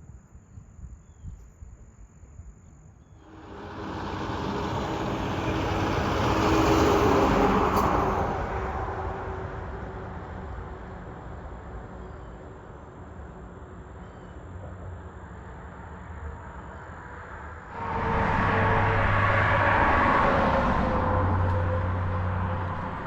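Two road vehicles passing close by, one after another. The tyre and engine noise of each swells up and fades away, the first starting about three seconds in and the second near the end.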